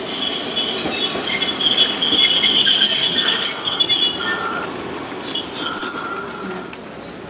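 Hankai Tramway tram car 503's steel wheels squealing against the rails as it rounds a curve, several high steady tones over a low rolling rumble. The squeal dies away about six seconds in.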